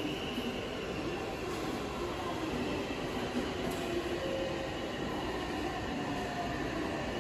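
Steady noise of a train in a railway station, a continuous rumble with a few faint tones and no distinct single events.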